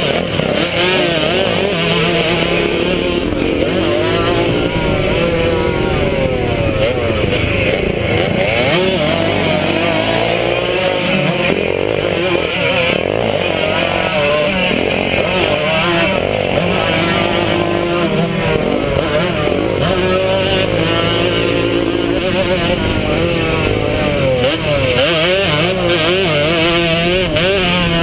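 Small two-stroke vintage 100cc motocross bike engine revving hard under the rider, its pitch rising and falling again and again as it is worked through corners and down a straight.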